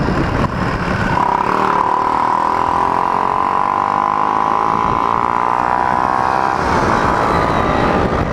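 Motorcycle engine running under way, its pitch held fairly steady for several seconds, with wind noise on a helmet microphone.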